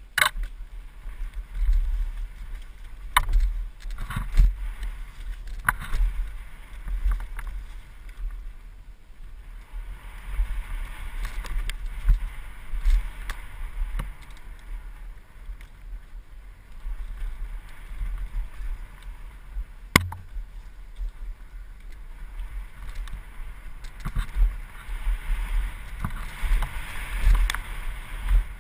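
Mountain bike rolling fast down a dirt forest trail: tyres on dirt and leaves, the bike rattling and knocking over bumps, with heavy wind rumble on the microphone. Sharp knocks stand out a few times, the loudest about twenty seconds in.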